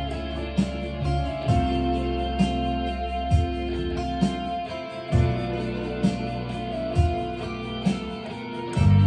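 Harley Benton Fusion-T electric guitar with EMG pickups played over a backing track, with long low bass notes and a steady drum beat hitting about once a second.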